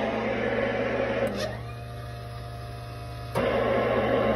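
Radio receiver hiss over a steady hum. The hiss drops away with a click about a second and a half in, then comes back with another click near the end.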